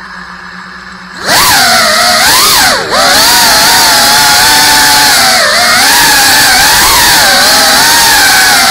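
GEPRC CineLog 35 cinewhoop's brushless motors and ducted propellers, spinning at a low armed idle, then throttling up about a second in to a loud high whine. The whine rises and falls in pitch with the throttle and briefly dips twice.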